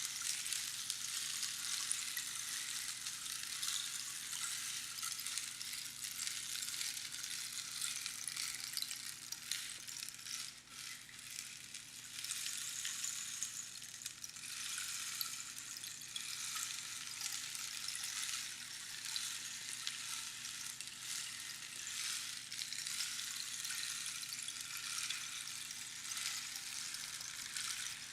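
Rainstick being tipped, its pebbles trickling down past the pins inside the tube in a steady, fine, rain-like patter, with a short lull about ten seconds in before the flow picks up again.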